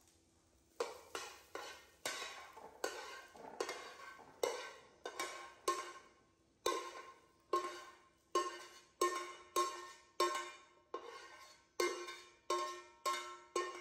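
A metal spatula scraping and knocking against a frying pan while the corn is pushed out onto a plate. There are repeated sharp strikes, about one or two a second, and the pan rings briefly after each one.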